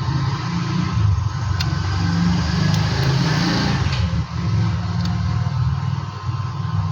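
A steady low mechanical rumble, like a running motor, with a few light clicks.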